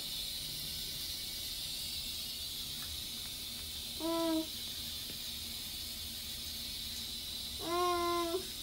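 A young child brushing her teeth makes two short hummed sounds, one about four seconds in and a longer one near the end, over a steady hiss.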